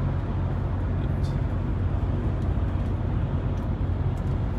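Steady low drone heard inside a semi-truck cab cruising at motorway speed: engine and road noise.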